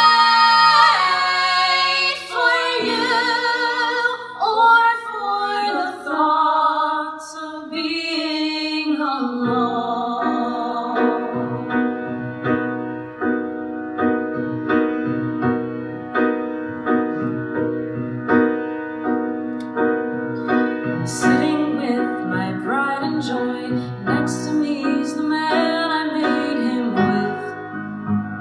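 A woman's solo voice singing a musical-theatre song over piano accompaniment, the vocal line ending about nine seconds in; piano then plays alone with sustained chords.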